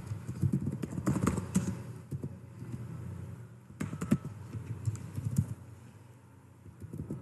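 Typing on a computer keyboard: irregular runs of quick keystrokes that thin out near the end.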